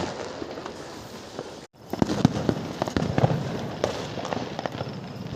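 Firecrackers going off in a rapid, irregular string of sharp cracks and pops, cut by a brief moment of silence about a second and a half in.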